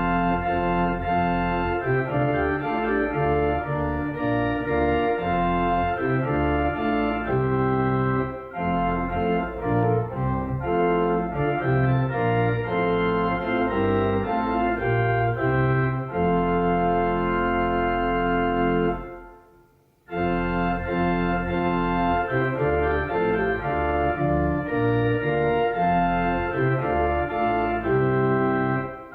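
Church organ playing a hymn tune in held chords, phrase by phrase, with a pause of about a second between phrases about two-thirds of the way through.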